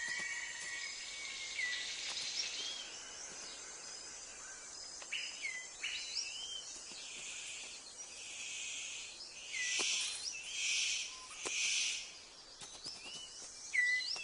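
Tropical rainforest ambience: many birds calling in short rising and falling whistles throughout. From about seven to twelve seconds in comes a run of hissing bursts, loudest in three pulses near the end of that stretch, with a couple of sharp clicks.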